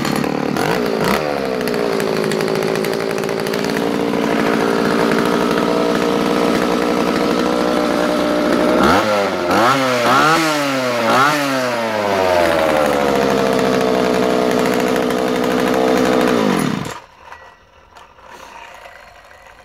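Vintage 1970s Husqvarna 32, a 32cc two-stroke chainsaw powerhead with no bar or chain, firing up and settling from a fast idle into a steady idle. About halfway it is revved up three times in quick succession, then idles again and cuts out suddenly near the end.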